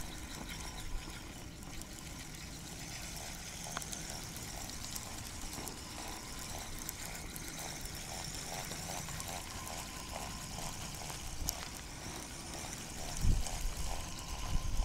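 Spinning reel being cranked to bring in a bite, a soft, even whirring rhythm of about two beats a second. A low handling bump near the end.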